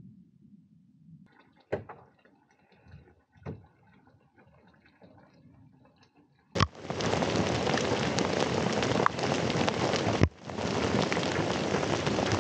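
Heavy hail shower pelting down, a dense, even hiss and patter that starts suddenly about halfway through and breaks off for a moment once. Before it, quiet with a couple of faint knocks.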